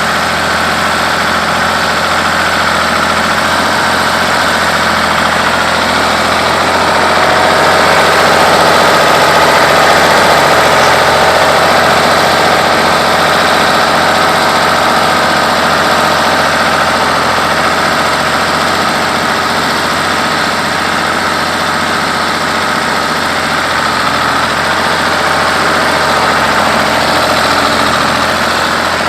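A 1965 Ford 3000 tractor's three-cylinder engine running steadily, growing a little louder about eight to twelve seconds in.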